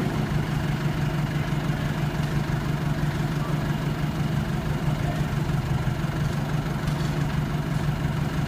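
Forklift engine idling steadily, a constant low hum while it holds the helicopter during the lift.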